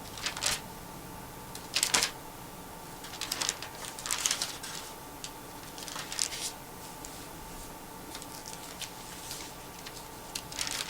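Irregular soft clicks and rustles of handling, a few at a time with gaps between, over a faint steady hum.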